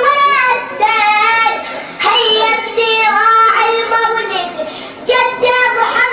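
A solo voice chanting an Arabic religious poem in the radood style, holding wavering sung notes in phrases with brief breaks between them.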